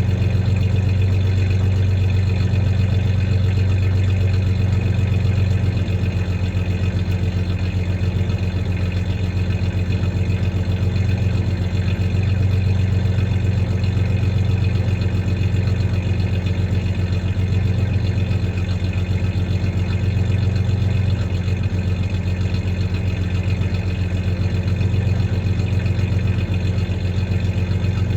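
1993 Ford Ranger's 3.0 L V6 idling steadily with a slight misfire.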